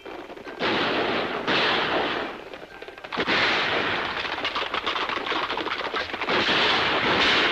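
Gunfire in a street battle on a 1950s film soundtrack: two long bursts of shots in the first two seconds, then from about three seconds in continuous rapid firing.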